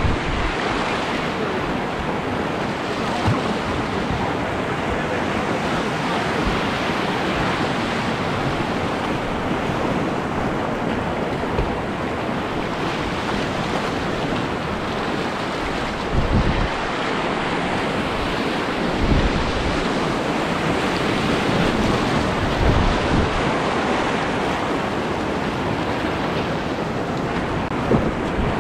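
Whitewater rapids rushing loudly and steadily around a kayak, heard from right on the boat, with a few low thumps against the microphone.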